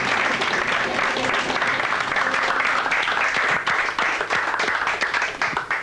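Studio audience applauding, thinning out near the end.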